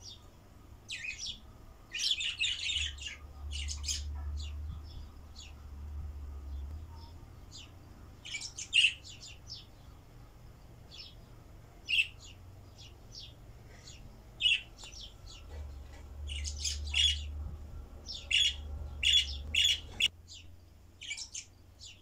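Caged budgerigars chirping in short, high bursts, busiest about two seconds in and again over the last few seconds.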